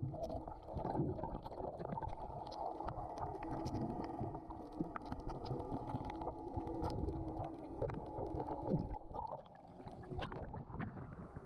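Muffled, churning water noise from rough sea, with many faint scattered clicks and crackles over it.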